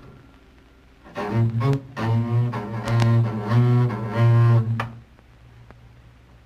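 Upright double bass played with the bow: a short phrase of sustained low notes stepping in pitch, starting about a second in and stopping at about five seconds.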